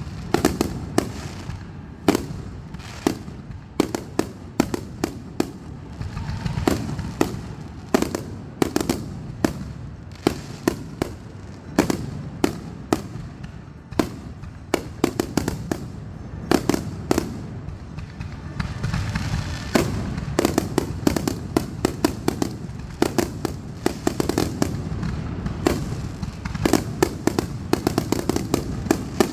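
Fireworks going off without a break: many sharp bangs and pops in quick, irregular succession over a steady low rumble.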